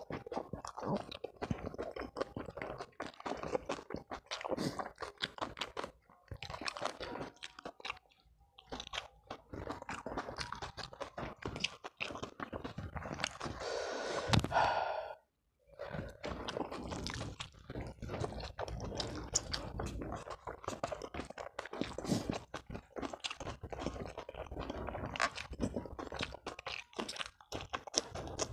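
Close-miked mouth sounds of a person eating a rice meal by hand: continual wet chewing and crunching, with many small irregular clicks. About halfway through there is a brief pitched sound from the eater, like a hum, and then the sound cuts out for a moment.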